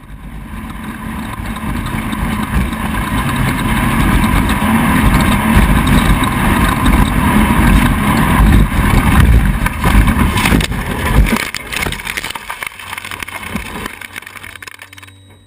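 Off-road race vehicle's engine running hard, loud and building over the first ten seconds. A few sharp knocks come around ten to eleven seconds in, then the sound drops to a quieter, steady low hum.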